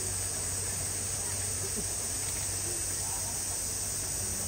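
Steady, high-pitched drone of a cicada chorus, with faint chatter of visitors behind it.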